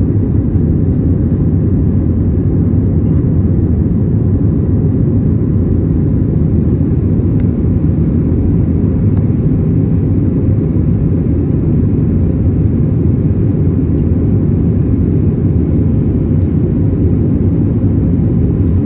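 Steady, loud low rumble of an airliner's engines and airflow heard from inside the passenger cabin during the takeoff climb.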